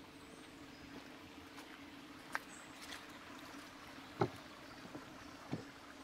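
Footsteps on a woodland path, a sharp step about every two-thirds of a second from about two seconds in, over a steady low hum, with a few faint, short high bird chirps.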